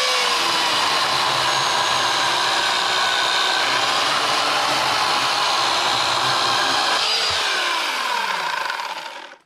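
Yardworks 2.5 hp corded electric chainsaw with skip chain, running at full speed and cutting through a small log: a steady motor whine over the rasp of the chain in the wood. About seven seconds in the trigger is released, and the whine falls in pitch as the motor winds down to a stop.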